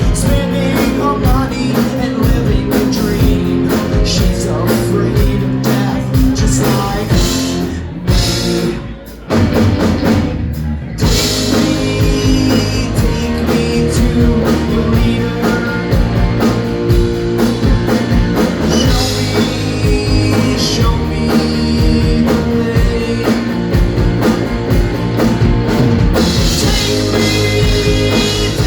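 Rock band playing live, with drum kit, electric guitar and singing. The full sound thins out briefly about eight to eleven seconds in, then the whole band comes back in.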